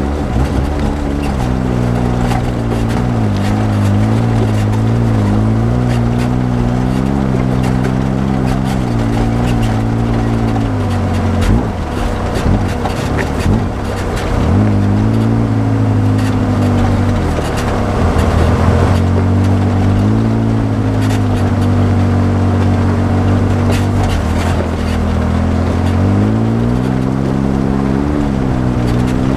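Polaris RZR side-by-side UTV engine running as it drives a rocky trail, its pitch rising and falling with the throttle. The engine note falls away about eleven seconds in and picks back up a few seconds later. Scattered knocks and rattles come from the rough ground.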